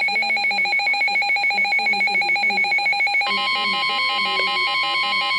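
Midland NOAA weather radio alarm going off for a severe thunderstorm warning: a fast, evenly pulsing electronic beep, joined about three seconds in by a steady single-pitched alert tone, the National Weather Service 1050 Hz warning alarm.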